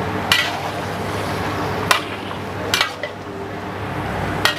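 Metal ladle stirring chicken in thick sweet and sour sauce in a large steel wok, clanking against the wok four times over a steady low hum.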